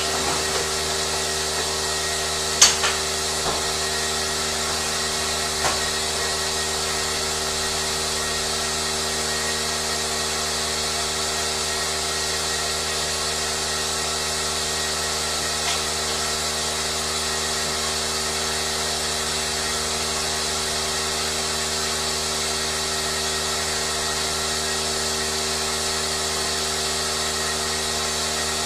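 A steady machine hum with a few sharp clicks and knocks near the start, the loudest about three seconds in.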